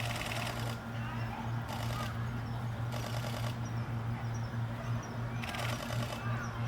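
Four short bursts of rapid camera shutter clicks, continuous shooting, each lasting under a second, over a steady low hum, with faint bird chirps.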